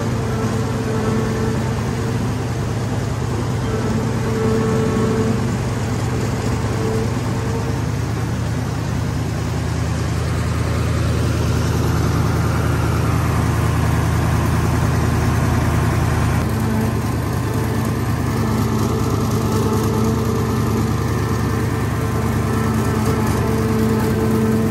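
Hino F21C V8 diesel engine on a mud-tilling machine, running steadily and loudly, with a faint higher whine that comes and goes.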